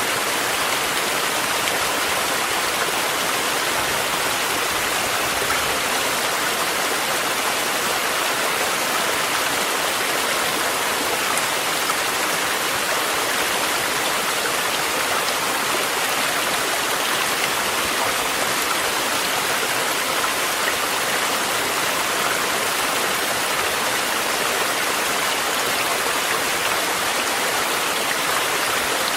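Mountain stream rushing, mixed with steady rain: an even, unbroken water hiss with no thunder clap.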